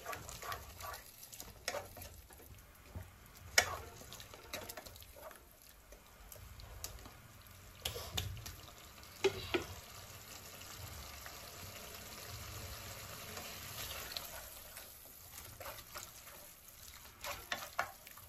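A spoon stirring and scraping a pan of tomato gravy thinned with bottle-gourd water, with a faint sizzle underneath. A few sharp clinks of spoon on pan come through, several of them close together near the end.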